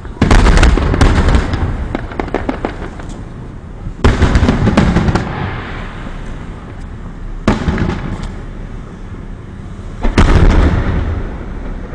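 Aerial fireworks bursting: four loud booms about three seconds apart, each dying away over a second or two, the first followed by a run of sharp crackles.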